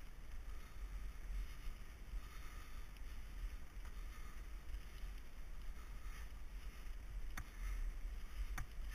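Wind buffeting a mountain biker's camera microphone with a steady low rumble, over the noise of a mountain bike rolling along a gravel forest trail. Two sharp clicks near the end.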